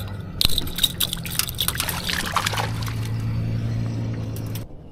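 Water splashing and trickling at the side of a jon boat as a crappie on a stringer is lowered into the lake. A steady low hum grows louder about halfway through and cuts off suddenly near the end.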